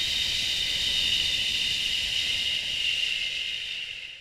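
A woman's long, steady 'shh' exhale, the Taoist healing sound for the liver, trailing off at the end as her breath runs out.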